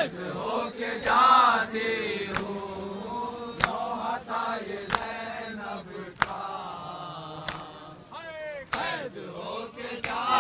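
A group of men chanting a nauha, a Shia lament, in unison. Sharp hand strikes on the chest (matam) keep time, about one every second and a quarter.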